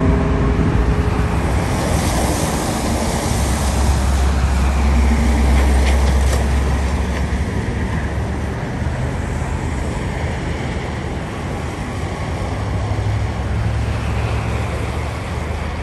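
Jet engine noise from a twin-engine widebody airliner flying low on final approach with its gear down. It is a steady rumble and hiss that swells about five seconds in and eases off toward the end.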